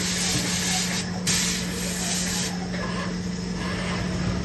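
Airless putty sprayer gun hissing as it sprays putty onto a wall. The spray cuts off about a second in, sprays again for just over a second, then stops, over a steady low hum. The gun is fitted with a large tip to lay on a thick coat.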